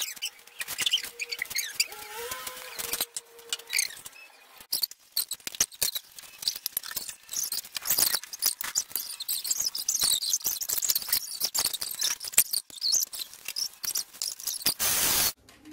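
Stainless steel kitchen vessels and lids clinking, scraping and rattling as they are handled, with many small clicks and knocks, a thin squeak in the first three seconds and a short loud burst of noise near the end.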